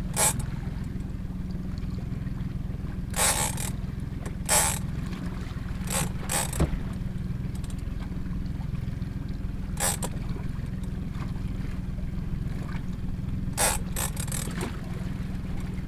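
Big-game lever-drag reel on a stand-up tuna rod giving about eight short bursts of drag as a hooked bluefin tuna pulls line in spurts, over a steady low hum.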